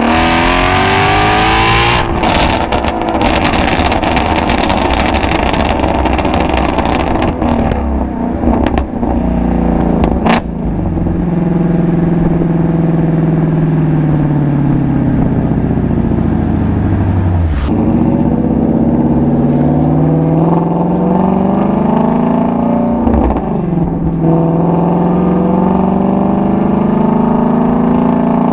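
Ford Shelby GT350's 5.2-litre flat-plane-crank V8 exhaust while driving. It revs hard in the first couple of seconds, then the pitch falls and climbs several times with throttle and gear changes, with a few sharp cracks along the way.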